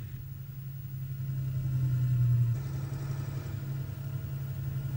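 Heavy towing tractor's engine running steadily, a low drone that swells about two seconds in and then eases back slightly.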